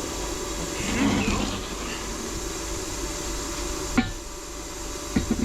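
Generator and air compressor running steadily, with a sharp knock about four seconds in and a few quicker knocks near the end.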